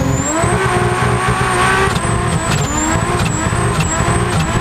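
Turbocharged 4-litre Ford Barra inline-six in a drag Holden VL Calais revving hard: the engine note climbs in the first half-second, then holds high with small wavers, a thin high whine rising with it.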